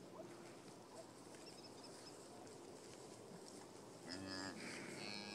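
Near silence, then about four seconds in a cow gives two short, faint moos.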